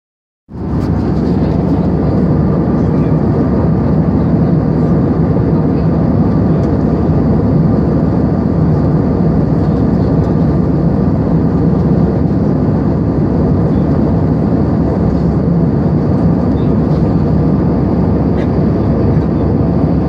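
Steady jet airliner cabin noise heard at a window seat in flight: the drone of the engines and the rush of air over the fuselage, with a constant low hum. It starts abruptly about half a second in and holds unchanged.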